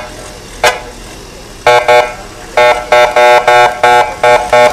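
Vehicle horn honked in short beeps: two at first, then after a short pause a long run of quick beeps, about four or five a second. Two sharp knocks come in the first second.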